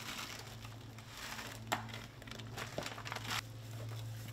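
A bag of brown sugar crinkling as sugar is shaken out onto a beef brisket in a plastic tub, with a sharp tap about a second and a half in, then hands rubbing the sugar into the meat. A low steady hum runs underneath.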